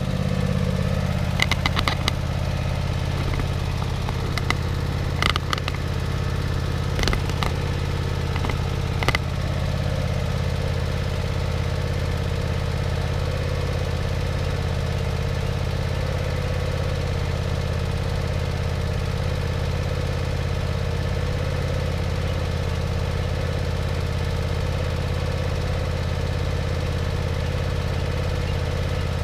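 An engine idling steadily, left running to warm up after being hard to start from sitting unused a long time. A few sharp knocks in the first ten seconds.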